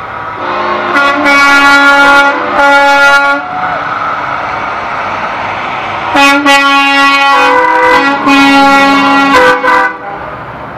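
Semi-truck air horns blowing loud multi-note chord blasts: two short blasts about a second in, then a long blast from about six seconds to near ten seconds that changes chord partway through. Truck traffic rumbles between the blasts.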